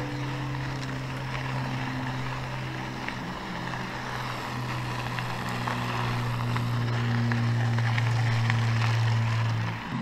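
Mountain bike rolling fast over a dirt road: a steady low drone over wind and gravel noise on the camera, growing slightly louder in the second half and cutting off near the end.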